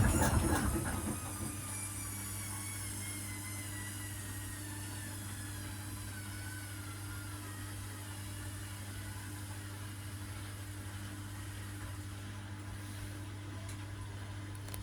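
Electrolux EW1057F washing machine's drum coming down from its interim spin. A loud rattling run in the first second or so gives way to a motor whine that slowly falls in pitch as the drum coasts, over a steady low hum.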